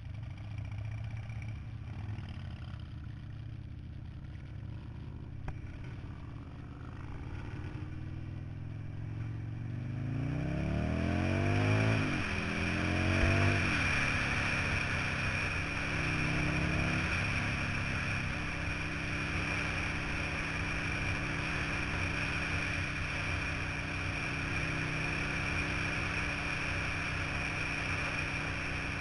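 Buell Lightning X1's air-cooled V-twin engine running at low revs, then accelerating about ten seconds in, its pitch rising, dropping back and rising again. After that, a steady rush of wind over the helmet-mounted microphone covers the engine as the bike cruises at speed.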